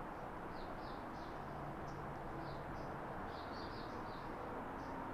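Small birds chirping in short, repeated calls over a steady background noise.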